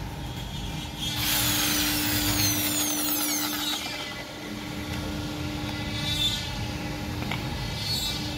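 Handheld corded electric drill running in a burst of about two and a half seconds starting about a second in, its whine falling as the motor winds down, then shorter runs around five to six seconds in and again near the end. A steady low hum runs underneath.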